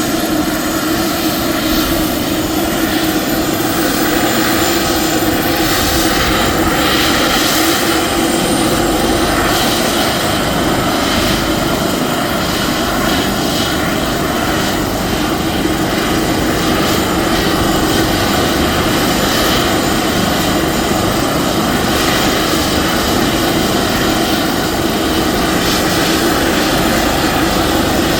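Airbus H145 D3 helicopter running with its twin turboshaft engines and rotor turning: a loud, steady turbine and rotor sound with a constant low hum.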